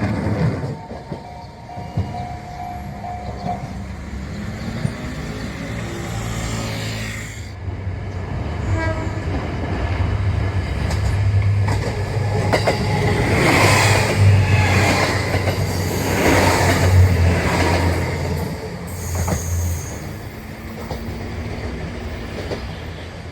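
The Nanohana, a JR diesel train, runs out of Minami-Kagoshima station and across the level crossing, its diesel engine droning steadily. Its wheels clatter over the crossing and rail joints, loudest about two-thirds of the way through.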